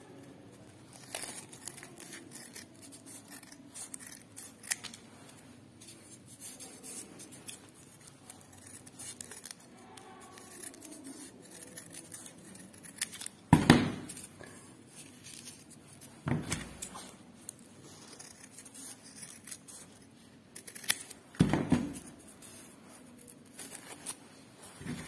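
Scissors snipping through folded green crepe paper in short, irregular cuts as leaf shapes are cut out, with paper rustling. Three louder sharp knocks stand out, about halfway through, a few seconds later, and near the end.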